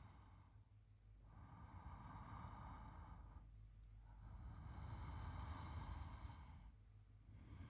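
A man's slow, even sleep breathing close to the microphone, faint: one drawn-out breath about every three seconds.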